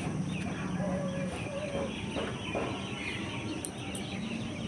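Chickens clucking, with short wavering calls repeating.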